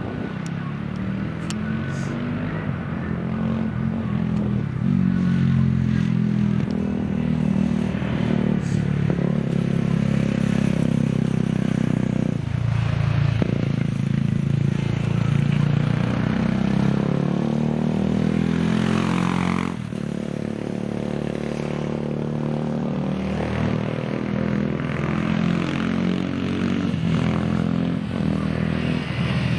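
Megelli 250R's single-cylinder engine running on track while being run in with a new piston and cylinder. The revs rise and fall repeatedly with gear changes and throttle, with a sharp drop near the middle.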